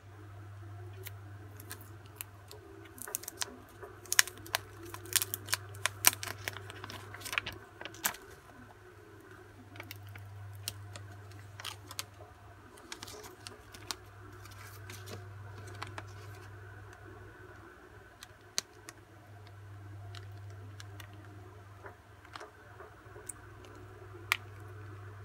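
Handling clicks and taps of a smartphone and its clear plastic case being turned over and fitted. A quick flurry of sharp clicks comes in the first several seconds, then scattered taps, over a steady low hum.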